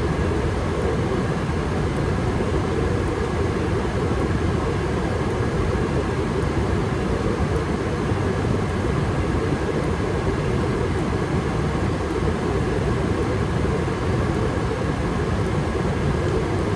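Furnace running steadily with its burners firing during a combustion test: a constant rushing hum with no change.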